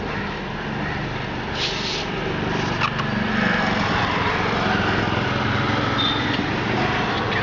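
A steady mechanical drone, like a small motor running, with a few faint clicks and knocks over it.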